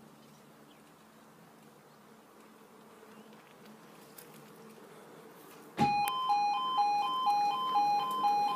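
Level crossing's two-tone 'yodel' alarm starting suddenly about six seconds in, switching rapidly back and forth between two pitches. It sounds as the amber light comes on, the start of the warning sequence before the barriers lower for an approaching train. Before it, only a faint low hum.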